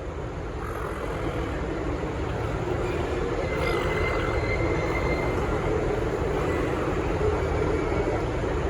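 V/Line VLocity diesel multiple unit running through the station, its engine and wheel rumble growing steadily louder over the first few seconds, then holding level.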